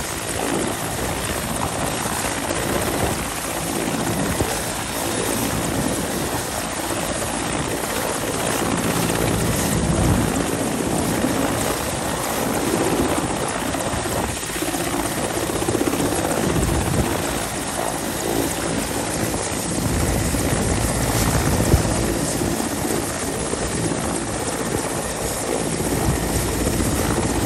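Mi-17 helicopter running steadily on the ground, its twin turbine engines whining and the rotor throbbing.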